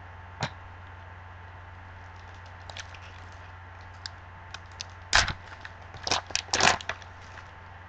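Foil wrapper of a trading-card pack crinkling and tearing as gloved hands open it: a few faint crackles, then louder crackling bursts from about five seconds in.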